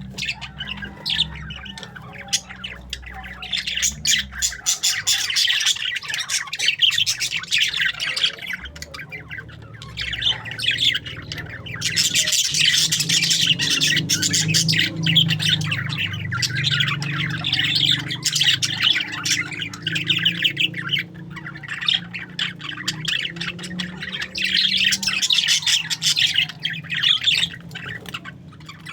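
A flock of parakeets chattering, warbling and squawking continuously, with many calls overlapping and a few brief lulls.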